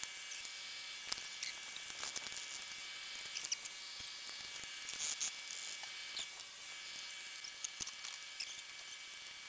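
Faint, irregular light clicks, taps and scrapes of metal parts as a Prius engine is worked free in the engine bay and raised on a shop engine hoist and chain, over a faint steady hiss.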